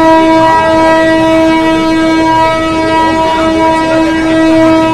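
A suburban electric local train's horn sounding one long, unbroken note at a single steady pitch, over the noise of a crowded platform.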